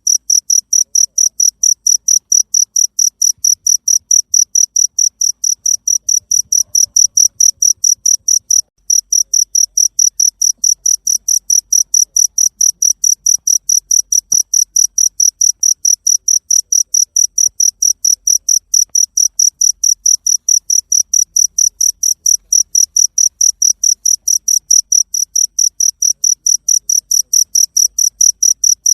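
Cricket chirping steadily: a high-pitched pulsing chirp repeated about four times a second, with a brief break about nine seconds in.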